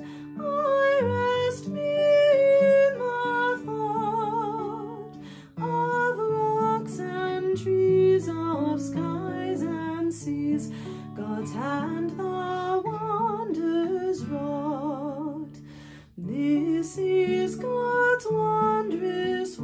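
A woman singing a hymn with vibrato in slow phrases, accompanying herself on acoustic guitar, with brief pauses between lines.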